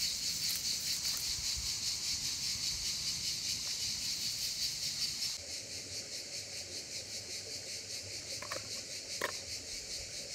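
Insects chirring in a steady, pulsing, high-pitched summer chorus, a little quieter after about five seconds. Two light clicks sound near the end.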